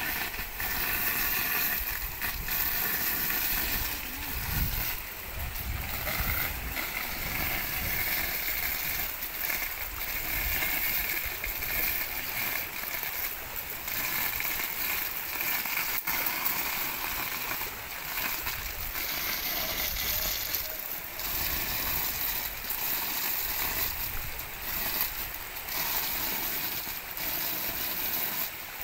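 Water rushing and splashing steadily from a badly leaking water supply pipe.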